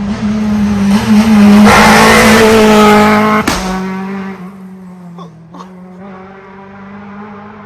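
A rally car passes close by at speed, its engine note loudest about two seconds in. There is a single sharp bang as it goes past, and then the engine fades as it moves away.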